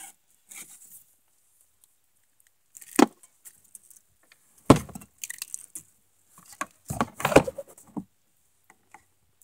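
Irregular knocks and thumps, with light rattling between them, as a freshly landed rock bass is handled in a canoe: a sharp knock about three seconds in, then heavier thumps near five seconds and a cluster around seven seconds.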